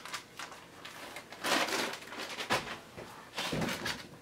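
Clear plastic packaging bag rustling and crinkling as it is handled, in two short bursts with a sharp knock between them.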